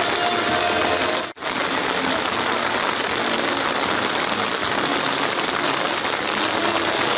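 Steady rain falling on wet ground, a continuous even hiss of drops, broken by a momentary dropout about a second in.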